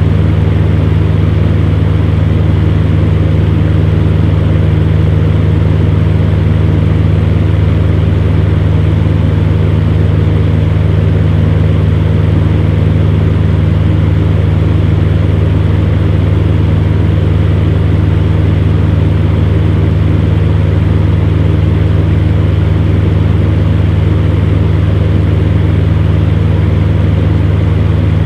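Electric fan heater running steadily: a constant low motor hum with the rush of the fan's air, unchanging throughout.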